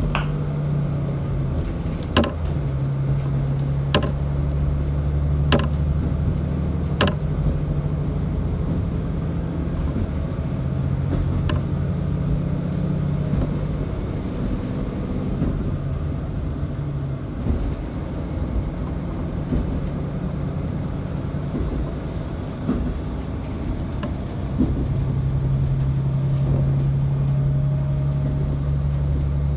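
Cabin sound of a KiHa 40 diesel railcar under way: the steady low drone of its diesel engine and running gear, with sharp clicks of the wheels over rail joints about every second and a half early on. The engine drone fades through the middle and comes back strongly near the end.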